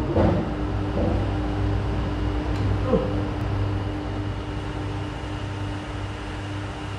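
Steady machine hum: a constant mid tone over a low drone and an even hiss, unchanging throughout.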